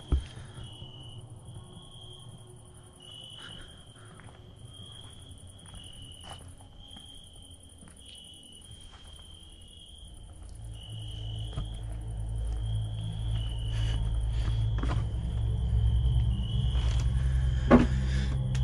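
Crickets chirping in a steady pulsing night chorus, with scattered light clicks. From about halfway through, a low rumble swells and grows louder, and a sharp knock comes near the end.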